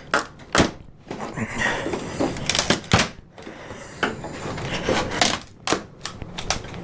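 Wooden shipping crate being broken apart by hand: a string of sharp, irregular wooden cracks and knocks, about eight loud ones, as boards and stapled joints give way.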